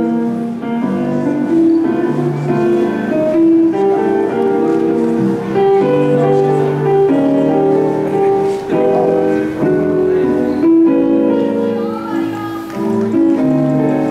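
Recorded instrumental music playing through an arena sound system to accompany a pom-pom dance routine, with held notes changing every second or so.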